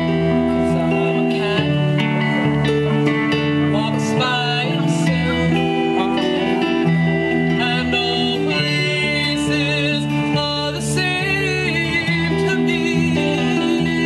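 Live band playing: electric guitars and a bass guitar through small amplifiers, with a woman singing.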